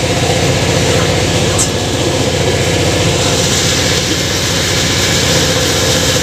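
Motorcycle engine running loud and steady, without revving.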